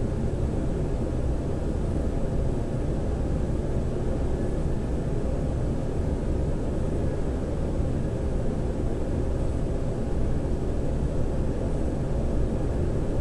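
Steady low rumble with a fainter hiss above it and a thin, faint high whine, unchanging throughout with no distinct events.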